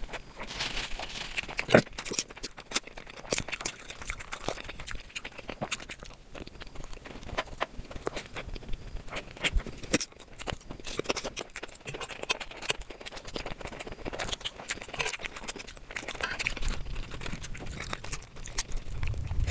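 Close-miked eating sounds: a person chewing, tearing and biting food, with irregular wet clicks, smacks and small crunches.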